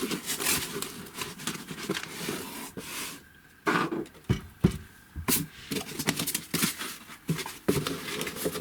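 Packaging and small parts being handled: irregular rustling, clicks and light knocks as a box's contents are sorted through.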